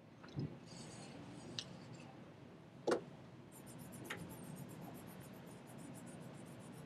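Colored pencil shading paper in quick, even back-and-forth strokes, starting about three and a half seconds in. Before that, a few sharp knocks, the loudest about three seconds in.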